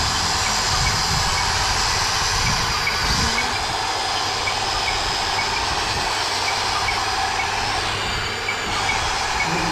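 Huina RC excavator driving forward on its tracks: its electric drive motors give a steady whir, with a faint regular clicking from the tracks.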